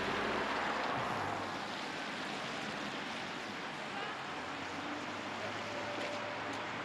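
Street traffic on a wet road: a steady hiss of tyres on wet tarmac as cars pass, a little louder in the first second.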